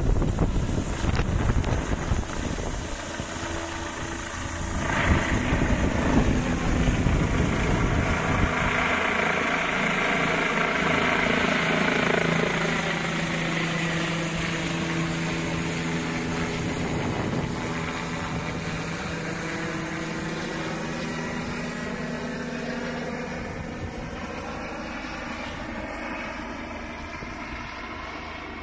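Helicopter flying low overhead and then away, its rotor and engine noise strongest early on and fading steadily through the second half. Wind buffets the microphone in the first few seconds.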